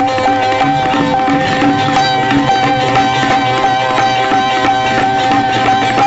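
Hindustani classical music for a tarana in raga Darbari, here instrumental: a steady held tone under a melody line with a regular percussion rhythm.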